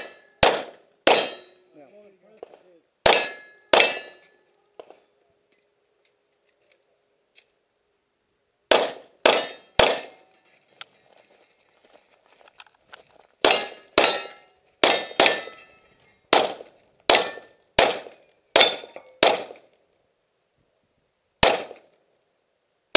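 Handgun shots fired in strings, with steel targets ringing. There are three quick shots at the start and a few more soon after, then a pause. Four shots follow, then a long, steady string of about a dozen, and a last single shot near the end.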